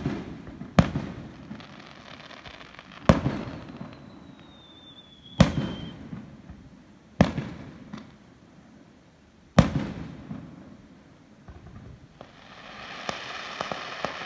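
Aerial firework shells bursting a second or a few seconds apart: six sharp bangs, each trailing off in a rolling echo. About four seconds in, a thin whistle falls slightly in pitch. Near the end a dense crackle of many small pops builds as a glittering shell bursts.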